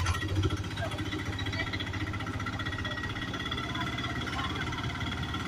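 Auto-rickshaw engine running steadily with a fast, even low pulse while the vehicle drives along the road.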